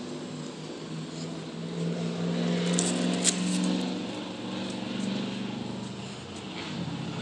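A motor vehicle's engine running close by, its hum swelling over a couple of seconds and then slowly fading, as a car passing. A single sharp click a little past the middle.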